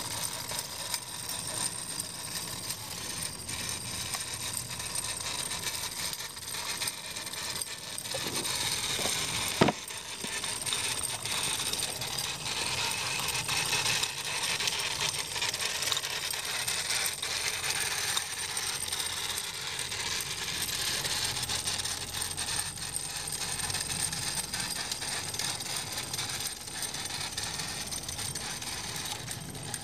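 Wilesco D36 toy steam roller running over loose stone chips: a continuous hiss with dense metallic clinking and rattling as its roller and wheels go over the stones, and one sharp click about ten seconds in.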